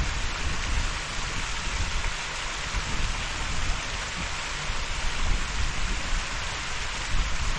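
Steady rushing noise of a waterfall, with gusts of wind buffeting the microphone in irregular low rumbles.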